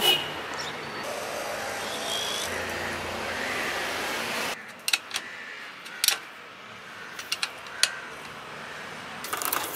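A steady noisy hiss for the first few seconds cuts off abruptly. Scattered sharp metal clicks and clinks follow as a spanner works on a bicycle's rear axle nut, with a quick cluster of them near the end.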